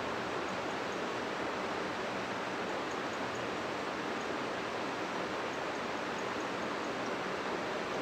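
Steady hiss of background noise with no speech: the lecture recording's noise floor.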